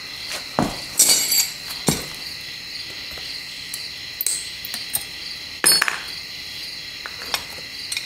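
Water-pump pliers clinking and knocking against a freshly sand-cast aluminium carb scoop as the sprue is twisted and broken off: a handful of sharp metallic clicks, the loudest about a second in and again just before six seconds.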